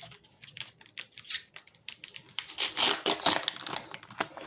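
Pokémon booster pack wrappers and cards being handled: a run of sharp crinkles, rustles and clicks, densest about two to three seconds in.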